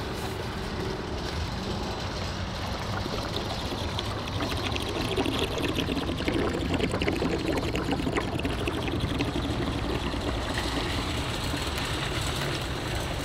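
Diesel exhaust fluid pouring from a jug into a pickup's DEF filler, a steady glugging stream that grows fuller a few seconds in.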